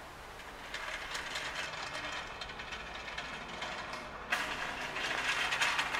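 Small engine of a riding lawn tractor starting and running: a rough, clattering noise that comes in about a second in and gets louder about four seconds in.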